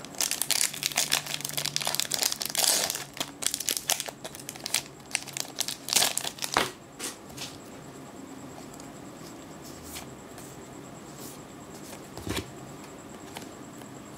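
Foil wrapper of a Magic: The Gathering booster pack being torn open and crinkled, a dense run of crackling for the first six or seven seconds, then only a few faint clicks and rustles.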